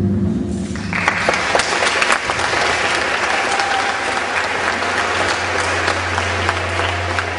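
A held musical note dies away in the first second, then an audience claps steadily.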